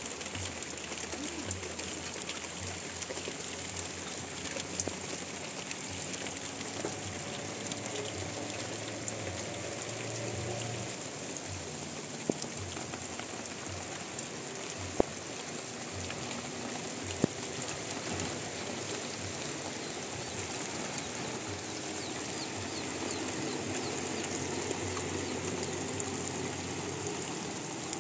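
Steady rain falling, with a few sharp taps standing out from the patter and a bird chirping faintly now and then.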